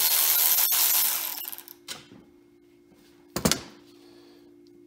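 Cordless electric ratchet running as it spins a grease-covered bolt out of a Ford Model T differential housing, then stopping about a second and a half in. A loud knock follows about three and a half seconds in, over a faint steady hum.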